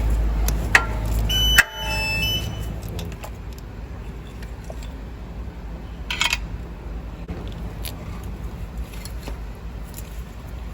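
Socket wrench on a stubby extension working compressor-bracket bolts: scattered metallic clicks and clinks, with one sharp clink that rings briefly about one and a half seconds in and a short cluster of clicks near the middle. A low steady rumble drops away right after the sharp clink.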